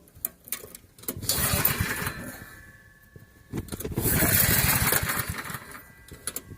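The engine of a small homemade circular sawmill being started: it fires and runs briefly about a second in, fades away, then catches again about three and a half seconds in and keeps running unevenly.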